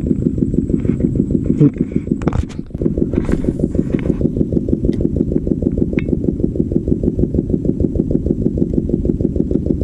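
A small engine running steadily with a fast, even beat, with a brief rustle about three seconds in.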